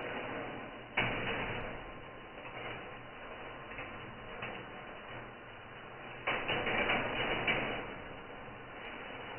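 10 mm steel balls rolling and rattling along the bent copper-wire tracks of a marble machine, with a sharp clack about a second in that fades into rolling, and a louder stretch of rattling about six seconds in.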